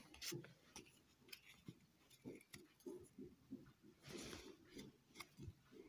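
Faint handling of Pokémon trading cards being flipped through one at a time: light clicks and ticks, with a soft swish of card sliding over card at the start and again about four seconds in.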